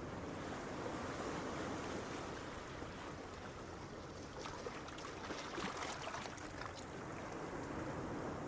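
Gentle sea waves breaking on a beach, a steady surf wash with a crackling fizz of receding water about halfway through.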